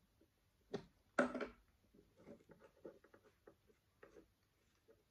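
Small plastic clicks and taps from handling a drone's opened body and feeding its wires through by hand, many quick light ticks. A brief louder noise comes about a second in.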